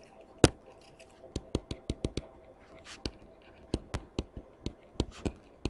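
Stylus tapping and ticking on a tablet screen during handwriting: an irregular series of short, sharp clicks with faint scratching between them.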